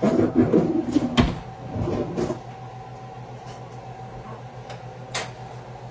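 Kitchen handling noises: clattering and knocking as things are moved about on the counter or in a cupboard, loudest in the first two seconds, with a sharp knock about a second in and another near the end, over a steady low hum.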